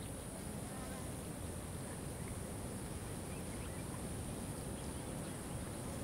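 A flying insect buzzing close by, over a steady low outdoor background noise.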